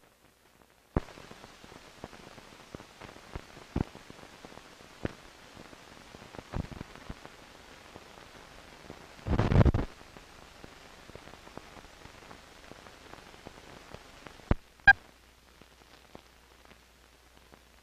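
Hiss and crackle of an old film soundtrack running over blank leader, starting about a second in, with scattered clicks and pops. There is a louder burst of noise about halfway through and two sharp pops near the end.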